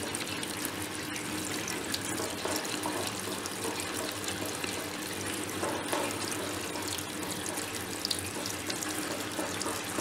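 Water running steadily from the supply hose into the washing machine as it fills.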